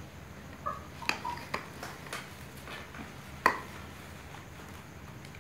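A steel spoon clinking and scraping against an aluminium cooking pot as cooked rice is scooped out. There are several light metallic clinks with a brief ring in the first three and a half seconds, the loudest about three and a half seconds in.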